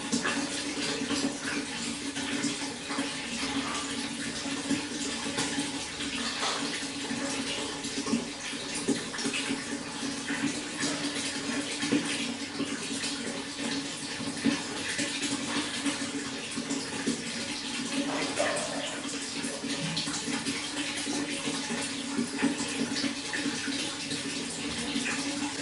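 Running water flowing steadily, a continuous splashing rush dotted with small drips and pops.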